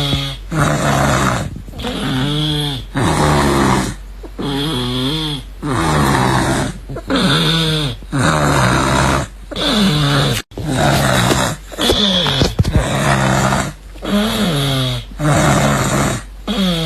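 Loud, regular snoring. Each cycle is a hissing breath followed by a buzzing snore that wavers in pitch, about one cycle every two and a half seconds.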